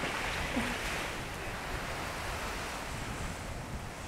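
Wind buffeting the microphone over the steady wash of shallow seawater at the shore.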